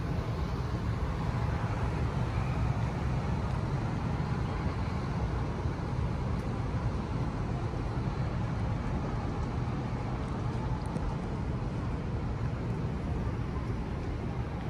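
Steady low rumble of background noise in a large, quiet building, even throughout with no distinct events.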